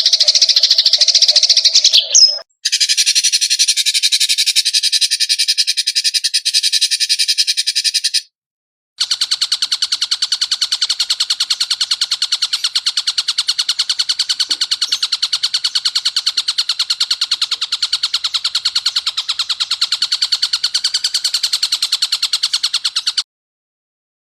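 Edited recordings of songbird calls played as training material: fast, buzzing trills, each a dense rattle of rapid pulses. Three separate clips follow one another, with a brief break about two seconds in and another about eight seconds in, and the sound stops shortly before the end.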